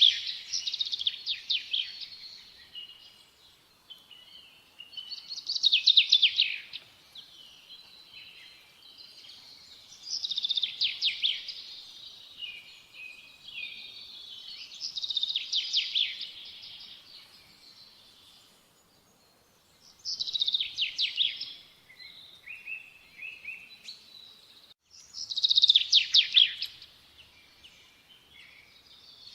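A songbird singing: a loud phrase of rapid high notes repeated about every five seconds, with softer twittering between phrases.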